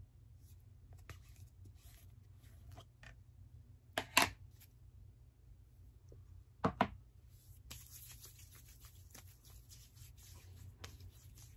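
A plastic tub of hand and body lotion being handled, with two short sharp knocks about four and seven seconds in. After that comes a steady soft rubbing hiss of lotion being massaged into skin.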